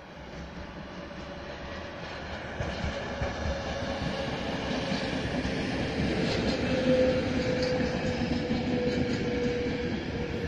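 Locomotive-hauled passenger train running past on a nearby track, its rumble growing louder as it nears and then holding, with a steady tone running through it.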